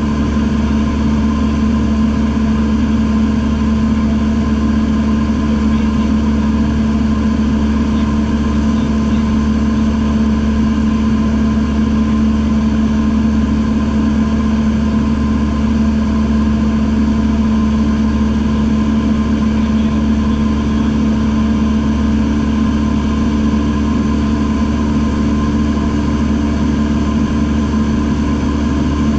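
Piston engine and propeller of a single-engine light airplane, heard from inside the cockpit: a loud, steady drone in level cruise, with no change in pitch or level.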